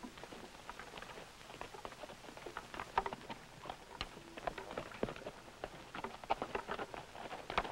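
Hooves of two horses walking over rocky, stony ground: an uneven clatter of clopping steps that grows denser and a little louder as they come closer.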